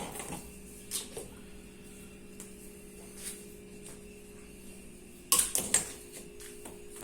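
Scattered clicks, then a quick cluster of loud knocks about five seconds in, as tools and metal parts are handled while a washing machine's drive mechanism is dismantled, over a faint steady hum.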